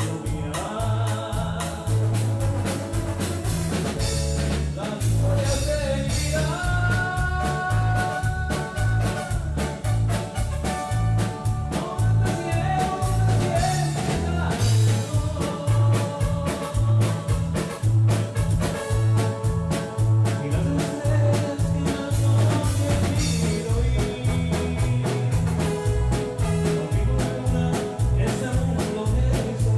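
A live grupero band playing: electric bass and drum kit keeping a steady, even beat under electric guitar and keyboard, with held melody notes.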